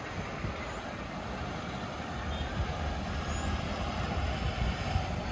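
Steady outdoor background din with an unsteady low rumble and no distinct events.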